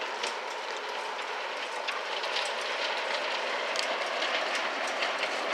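Ride-on garden miniature railway: a steady hiss with irregular light clicks of small wheels running over the rail joints.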